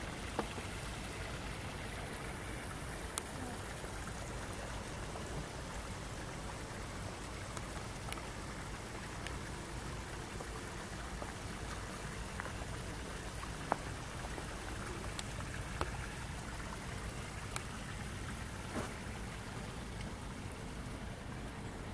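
Steady rushing of water at a river weir, with a few brief clicks now and then.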